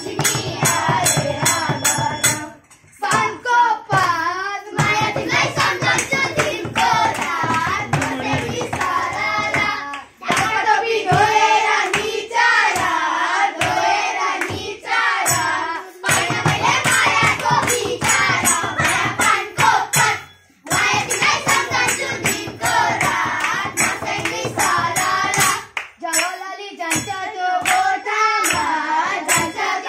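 A group of children singing a Tihar Deusi-Bhailo song together, clapping their hands to the beat, with a madal drum. The singing breaks off briefly a few times between lines.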